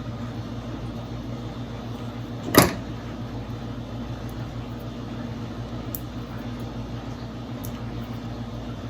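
Wire cutters snipping once through heat shrink tubing, a sharp click about two and a half seconds in, with a couple of faint ticks later. A steady low electrical hum runs underneath.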